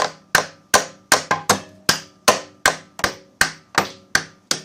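Hammer striking metal in a steady run, about three blows a second, each with a short ring, driving a center bolt into its hole on a snow plow.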